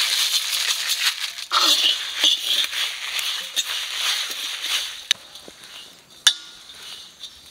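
Whole spices (coriander seeds, Byadgi chillies, cinnamon, cardamom, cloves, cumin, fennel and poppy seeds) dry-roasting in a kadai, rattling and crackling in the pan. The rattle fades about five seconds in, followed by two sharp clicks.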